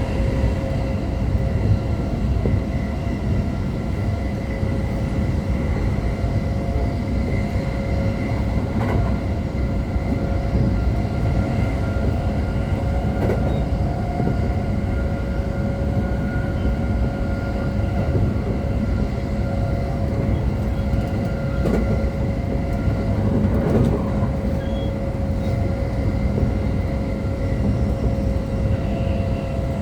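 Interior of a JR East E231 series 0 commuter train running between stations: a steady rumble of wheels on the rails under a constant hum of several steady tones from the running gear.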